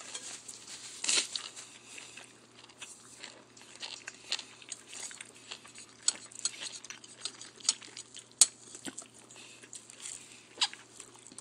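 Close-up eating sounds: chewing and crunching of food with many short, sharp clicks and taps of spoons against plates, the loudest about a second in and near the end.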